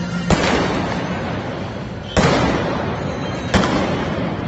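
Three gunshots from a mounted shooter firing blank rounds at balloon targets, the first just after the start, one near the middle and one near the end. Each shot echoes and dies away in the indoor arena.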